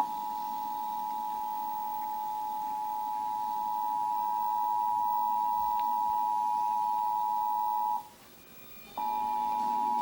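Emergency Alert System attention signal: the two-tone alarm (853 and 960 Hz sounded together) for about eight seconds, cutting off for a second and starting again near the end. It is the alert tone that announces a tornado warning.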